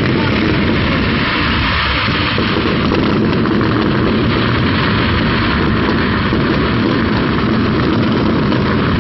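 Fireworks going off in a dense, rapid barrage, merging into a loud, steady roar and rumble with no single bang standing out.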